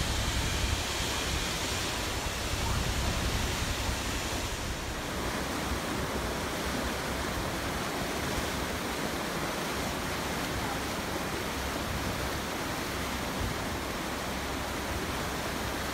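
Fast glacial river, the Matter Vispa, rushing white through a concrete-walled channel as a steady roar of water, with a low rumble in the first few seconds.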